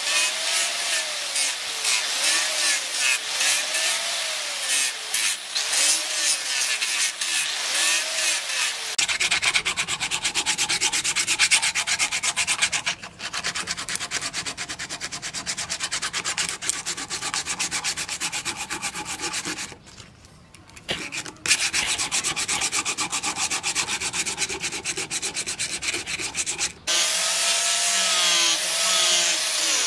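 Sandpaper rubbed by hand in quick strokes over a wooden knife handle, with a short pause midway. Before and after it, an electric angle grinder runs with a sanding pad, its motor pitch dipping and rising under load.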